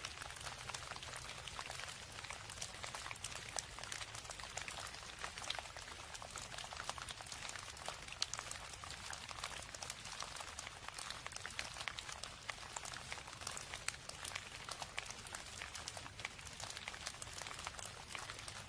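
Steady rain, a dense patter of many small drops with a faint low rumble beneath.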